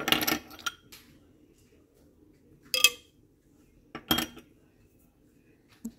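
Ice cubes tipped from a metal spoon into glasses of juice, the spoon clinking against the glass: a quick cluster of clinks at the start, then two single clinks about three and four seconds in.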